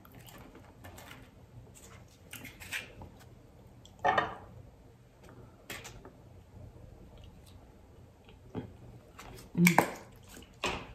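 A squeeze bottle of sour cream being squeezed out over tacos: soft squirts and light handling noises, with brief louder sounds about four seconds in and again near the end.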